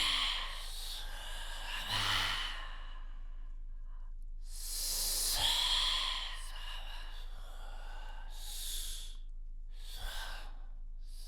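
A human voice imitating ocean waves: breathy, hissing "shhh" swells that rise and fall like waves washing in, the longest and loudest about five seconds in, with shorter ones around it.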